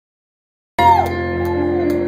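Electric keyboard playing held chords, cutting in abruptly out of silence just under a second in.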